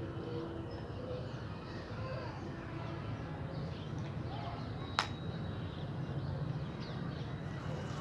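Birds calling in short scattered chirps over a steady low hum of town background noise, with a single sharp click about five seconds in.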